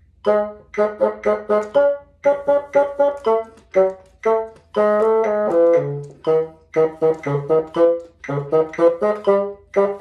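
Bassoon playing an etude passage of short, detached notes, with one longer held note about halfway through. A metronome ticks along in triplet subdivisions.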